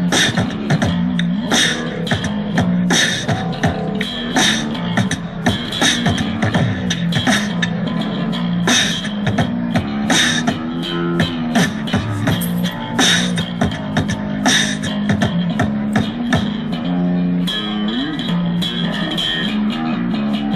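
Beatboxing amplified through a handheld microphone and portable speaker, keeping a steady beat, over an electric bass guitar playing a repeating low line. Near the end the beat thins out and the bass carries on.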